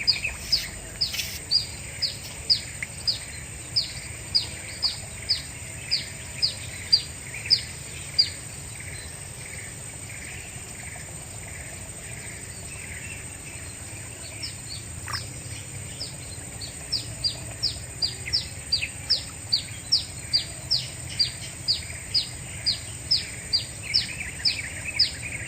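A bird calling over and over with a short, sharp falling note, about two a second. It stops about eight seconds in and starts again about halfway through.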